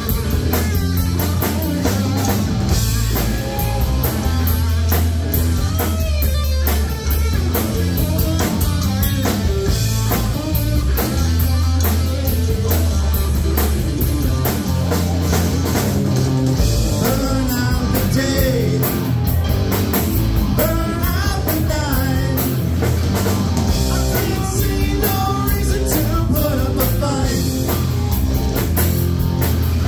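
Live rock band playing loudly: distorted electric guitar, electric bass and drum kit, with a lead vocal sung over them.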